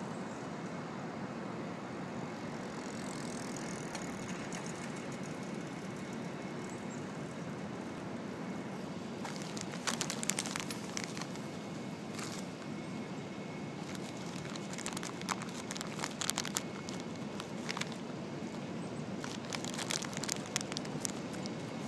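Steady street background noise, with bursts of crackling and crunching from nuts being eaten close to the microphone about ten, fifteen and twenty seconds in.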